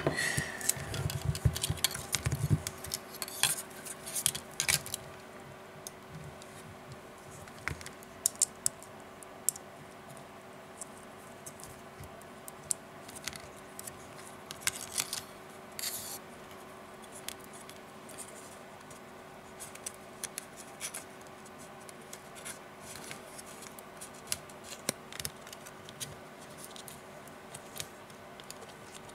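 Scattered small clicks, taps and light scrapes of hands handling an Asus Nexus 7 tablet's display panel and ribbon cables, with a brief low rumble at the start and a faint steady hum underneath.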